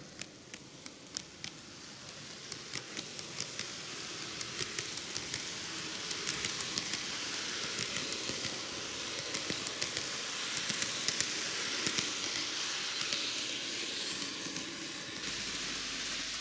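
N-gauge model train, a TOMIX Kintetsu 80000 series Hinotori, running on its track: a whirring hiss of motor and wheels with a stream of sharp little clicks as the wheels cross the rail joints. It grows louder as the train nears and passes, loudest in the middle.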